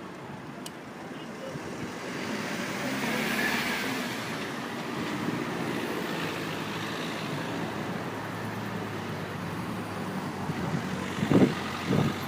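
Car engine and road noise, swelling over the first few seconds and then holding steady. A few loud, short thumps come near the end.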